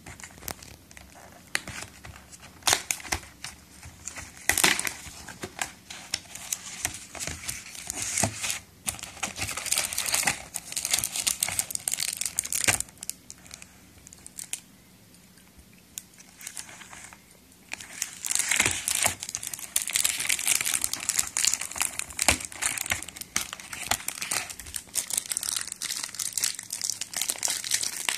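Aluminium foil wrapper of a dark chocolate bar being crinkled and torn open by hand, an irregular crackling with sharp clicks, louder and denser from about two-thirds of the way through.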